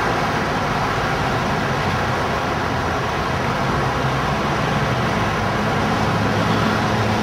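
Steady city street traffic noise, a continuous wash of passing cars and engines.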